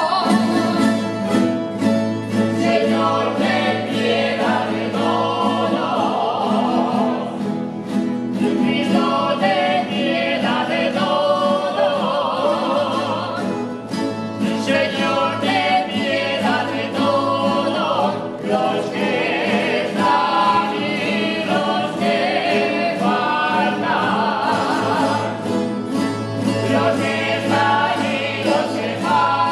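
Voices singing a song with instrumental accompaniment, the held notes wavering with vibrato.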